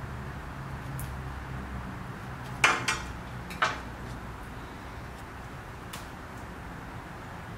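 Metal scissors set down on a glass tabletop: three sharp clinks, close together, about two and a half to three and a half seconds in, the first the loudest, over a low steady background hum.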